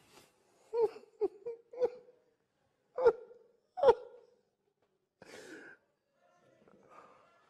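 A man's helpless, stifled laughter: a quick string of short squeaky laughs, two louder bursts about three and four seconds in, then breathy gasps for air.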